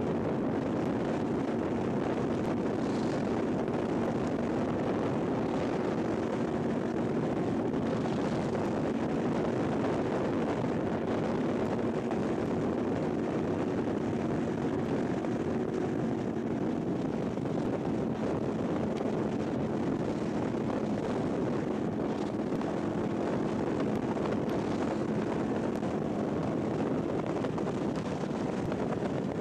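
Motorcycle engine running at a steady cruise, with wind rushing over the microphone; the engine note weakens for a few seconds past the middle, then comes back.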